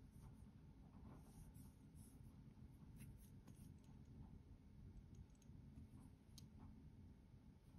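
Near silence, with faint rubbing and a few small clicks as fingers bend and handle a watch's rubber strap.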